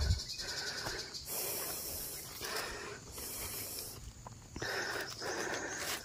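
A person's heavy, rhythmic breathing, hissing in and out about once a second, as from the exertion of carrying heavy loads of durians.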